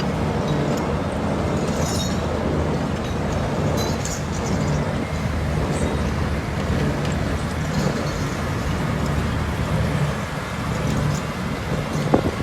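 Big excavator's diesel engine running steadily at a conveyor, a low even drone with a few light clinks, and one sharper knock near the end.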